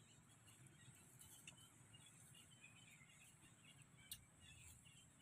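Near silence: faint outdoor ambience with scattered faint high chirps and two brief sharp clicks.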